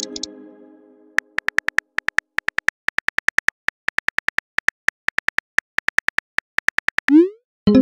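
Keyboard tap clicks of a simulated phone texting app: quick, evenly spaced ticks, about five a second in runs with brief pauses, as a text message is typed. Before them the tail of a chime fades out in the first second. Near the end comes a short rising swoosh of the message being sent, and a new chime begins.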